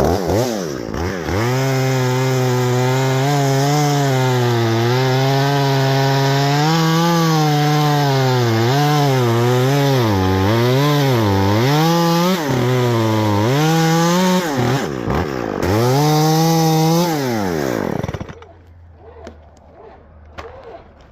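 Chainsaw at full throttle cutting through a tree limb, its engine pitch dipping and recovering again and again as the chain bogs in the wood, then dropping away about eighteen seconds in as the throttle is released.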